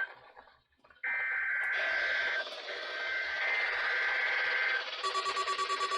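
Weather radio Emergency Alert System test: the SAME digital header plays as a buzzing data burst on two high tones. It breaks off briefly near the start, resumes about a second in over radio static, and about five seconds in gives way to the steady 1050 Hz NOAA Weather Radio warning alarm tone.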